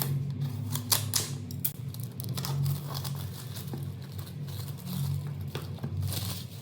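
Plastic packaging crinkling and tearing in irregular crackles as a smartphone box is unwrapped, over a steady low hum.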